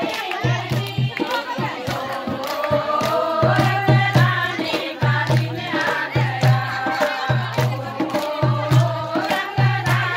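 A group of women singing a Holi folk song together, over a steady low drum beat and handclaps.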